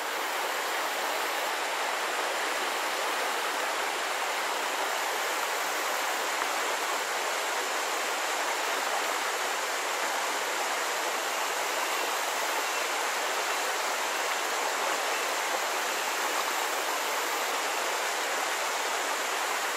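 Steady rush of bayou water running over and around shallow rocks, an even hiss with no breaks.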